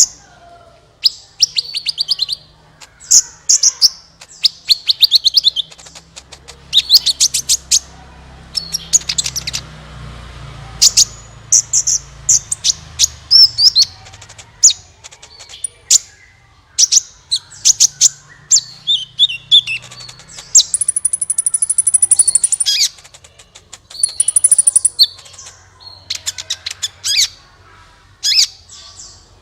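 Sunbird ('kolibri') singing in repeated bursts of rapid, high-pitched chirps and trills, with one longer buzzing trill about two-thirds of the way through.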